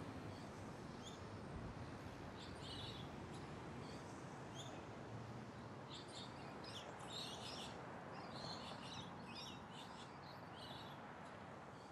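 Faint outdoor ambience: a steady low hiss with small birds chirping in many short, high calls, busiest in the middle and slowly fading near the end.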